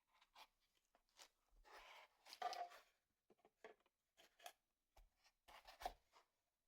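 Faint scratching, rubbing and clicking of small hand work, with a longer rough scraping stretch about two seconds in.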